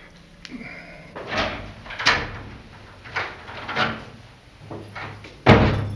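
Footsteps and knocks on a hard floor in a hallway, a few separate strikes, then a heavy door thud near the end.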